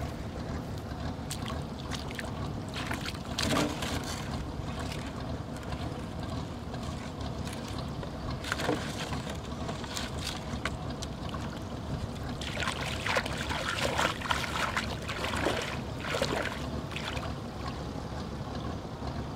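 Steady low wind rumble on the microphone, with short splashes and sloshing of shallow river water as a person wades. The splashing comes in a cluster of louder bursts about two-thirds of the way through.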